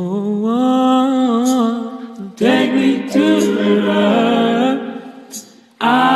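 A man singing a cappella without clear words, in long held notes with a wavering vibrato. He sings three phrases, with a short pause about a second before the last.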